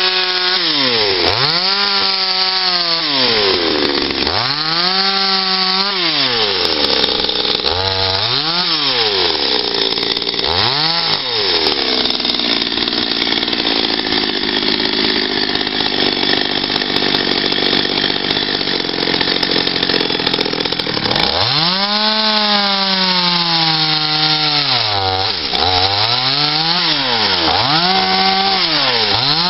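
Small two-stroke chainsaw carving into a wooden log: the engine is repeatedly revved up and let fall back toward idle as short cuts are made. In the middle it is held at high revs for about nine seconds, cutting steadily into the wood.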